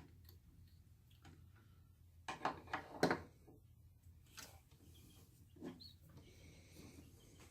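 A quick run of sharp clicks and knocks about two to three seconds in, with a few fainter clicks later: metal parts and tools being handled while an old Singer treadle sewing machine is taken apart and cleaned.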